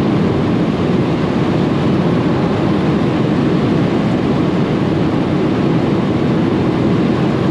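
Steady, loud cabin roar of a BMW 335i's turbocharged straight-six under load at about 250 km/h, mixed with wind and tyre noise as the car accelerates in top gear toward its speed limiter.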